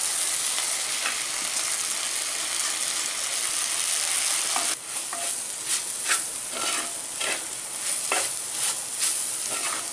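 Chopped shallots and tomatoes sizzling in hot oil with freshly added spice powders, stirred with a wooden spatula in a pot. The sizzle is steady at first, then thins about halfway through, and the spatula's scraping strokes stand out.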